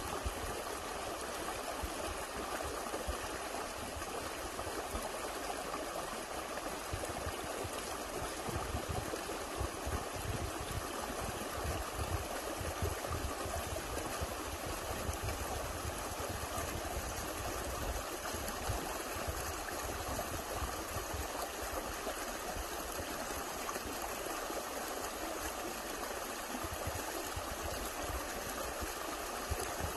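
Small woodland stream running steadily over a low step of stones, its water splashing in a continuous even rush.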